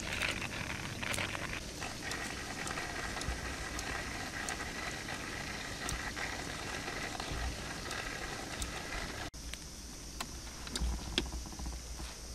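Blackened kettle on a campfire hissing and singing as the water nears the boil, with scattered crackles from the burning logs. The steady hiss cuts off sharply about nine seconds in, leaving faint crackles and a few knocks near the end as the kettle is lifted.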